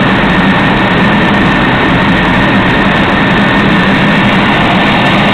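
Steady cabin noise of a four-engine jet airliner at cruise, heard from inside the cabin by a window: engine and airflow noise with a steady low hum and a faint high tone.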